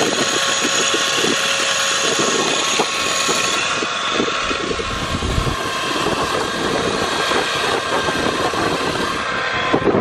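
A 2500 lb electric ATV winch on a truck bumper, running and reeling in its cable under load, with a steady motor-and-gear whine.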